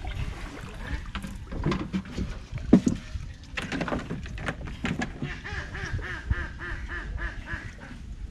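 Knocks and bumps of work in a wooden boat, the loudest a little before the middle, followed by a fast run of short repeated animal calls, about four a second, lasting some three seconds.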